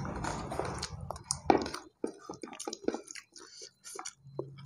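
Close eating sounds picked up by a clip-on microphone: chewing with wet mouth clicks, and fingers scooping rice across a plastic plate. A rustling scrape in the first second or so gives way to scattered short clicks.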